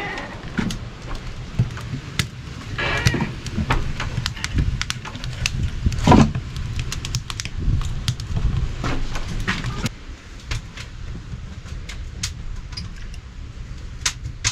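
Knocks and clatter of split firewood and the metal stove door as wood is loaded into a wood-burning sauna stove. The loudest knock comes about six seconds in, all over a low steady rumble.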